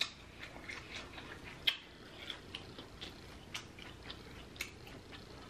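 A person chewing food with the mouth closed: irregular wet smacks and clicks, about a dozen of them, the strongest about a second and a half in.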